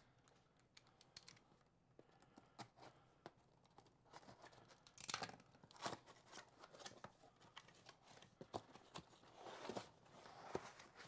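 Packing tape being slit and peeled off a cardboard box and the flaps pulled open: faint scattered clicks and rasping tears, loudest about five seconds in and again near the end.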